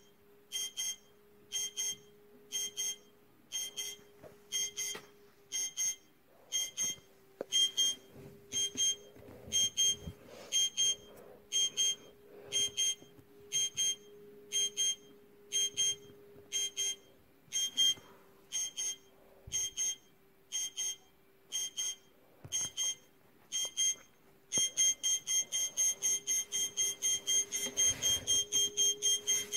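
Bomb countdown timer beeping: short, high electronic beeps about one and a half a second, quickening to about three a second near the end as the countdown nears zero, over a faint steady low hum.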